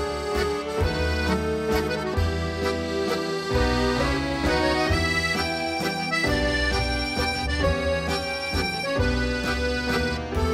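Background music with a pulsing bass line under many held notes.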